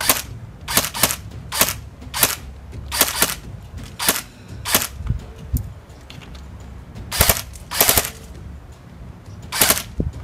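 Airsoft Honey Badger replica rifle firing single shots: about a dozen sharp cracks, some in quick pairs, with a pause of about two seconds midway.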